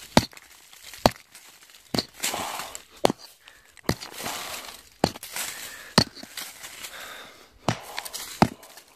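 A claw hammer striking into a bank of packed earth and stones, about nine blows roughly a second apart. Between the blows comes the rustle of loosened soil and grit spilling down.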